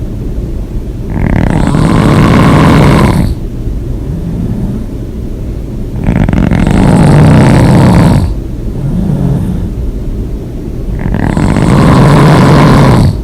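A person snoring hard with mouth open: three long, loud, rasping snores about five seconds apart, with quieter breaths between them.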